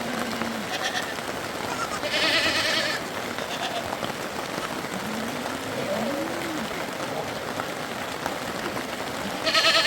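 Sheep bleating: two loud, quavering bleats about two seconds in and again near the end, with fainter, lower calls from the flock between.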